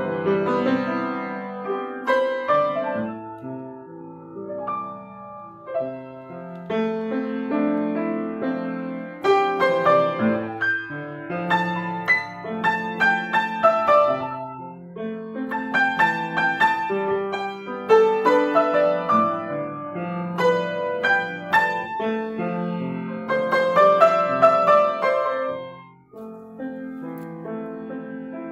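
Kawai GL-40 grand piano played four hands, a slow melody over sustained chords. The playing briefly nearly stops near the end, then resumes more softly.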